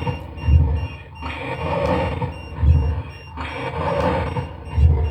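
A short stretch of a hissy EVP recording played back on a loop: the same burst of noise with a low thump comes round about every two seconds, three times, with faint high-pitched beeping tones underneath.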